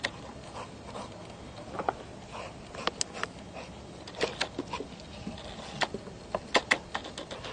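A dog's paws on dry grass: scattered, irregular light taps and crunches over a low steady background.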